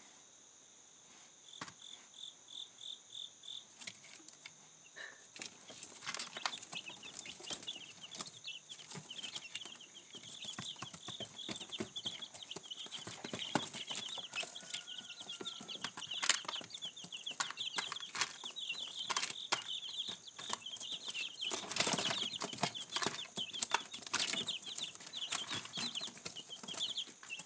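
Young chickens peeping steadily in a brooder, with pecking and scratching on feed and newspaper. About three-quarters of the way through a burst of scuffling and wing-flapping breaks out as they shove each other.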